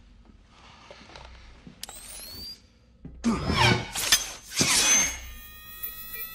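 Film fight sound effects. Quiet at first with one sharp click, then a run of loud whooshes and hits about three seconds in. Near the end comes the electronic beeping of a thrown pumpkin bomb about to go off.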